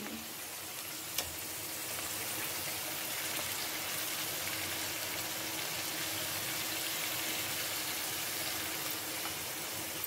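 Onion, green chilli and ginger-garlic paste frying in hot oil in a kadhai, a steady sizzle, with a single click about a second in.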